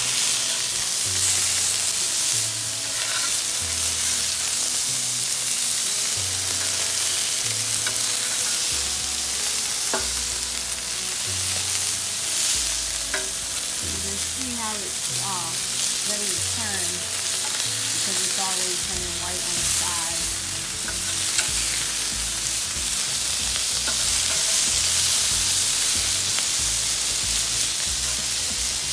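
Chicken, ribs, corn and eggplant sizzling in bacon grease on a Blackstone flat-top griddle: a steady frying hiss, with a couple of light clicks.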